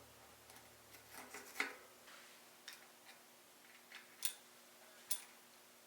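Bicycle cassette sprockets clicking against the freehub as they are slid on. The clicks are light, metallic and irregularly spaced, about half a dozen in all.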